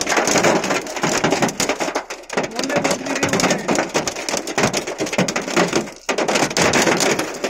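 Hailstones and heavy rain pelting the glass and surfaces close to the microphone: a dense, loud clatter of many small hits, easing briefly twice.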